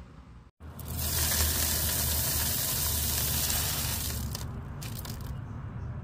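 Loose grain feed rushing and rattling into a plastic bucket. It runs loud for about three and a half seconds, then eases off, with a few scattered clicks near the end.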